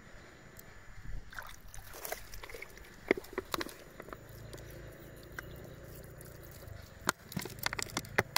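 Oyster shell clicking and scraping as it is pried and worked open by hand, in two clusters of sharp clicks, with water trickling from a plastic bottle onto the opened oyster.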